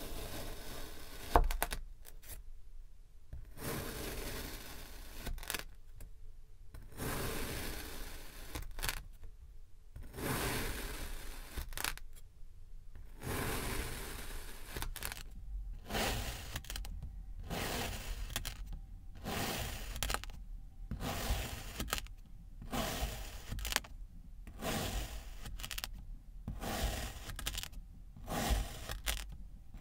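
Kinetic sand crunching and scraping as a plastic blade slices through a moulded block, one slice after another, each cut a second or two long. The cuts come quicker, about one a second, in the second half, and a sharp tap about a second in is the loudest sound.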